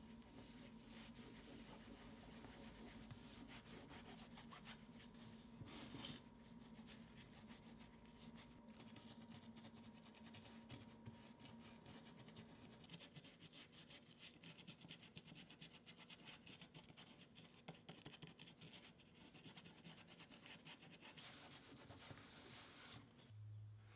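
Faint scratchy rubbing of a cloth working leather grease into a stamped leather patch, over a low steady hum.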